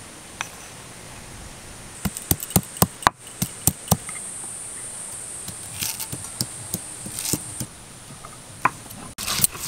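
Stone roller knocking down on pieces of ginger and garlic on a flat grinding stone, crushing them: a quick run of sharp knocks about two seconds in, then a few scattered ones. A steady high insect drone sounds behind it.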